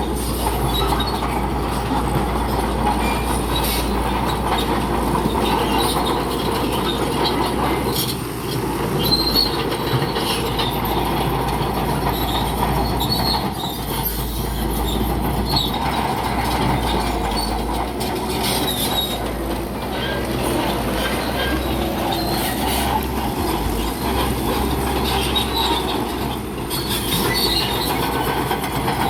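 Bulldozer at work: the diesel engine runs steadily while the steel crawler tracks give short high squeaks and clanks throughout.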